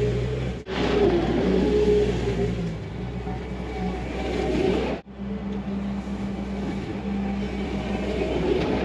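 Bobcat T300 compact track loader's diesel engine running steadily under load as it drags a box grading attachment through the dirt. The engine note changes abruptly twice, about half a second in and about five seconds in.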